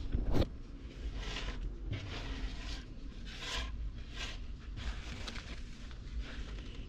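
Paper towel and a plastic zip-top bag rustling and crinkling in short, repeated swishes as hands handle them and press the towel down to pat wet ghost shrimp dry.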